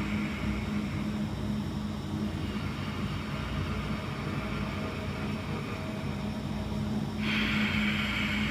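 Ujjayi breathing: slow, deliberate breaths drawn and let out through a narrowed throat, making a soft rushing hiss. One breath trails off about a second in, and the next starts abruptly about seven seconds in, over a steady low hum.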